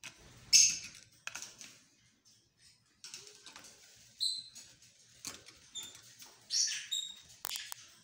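Caged lovebirds chirping: scattered short, high, squeaky chirps, with a louder harsh squawk about half a second in and another near the end.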